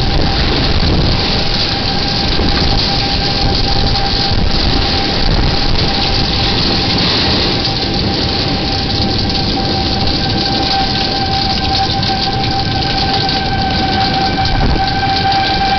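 Wind and heavy rain rushing steadily, with a tornado warning siren holding one steady tone underneath that grows louder near the end.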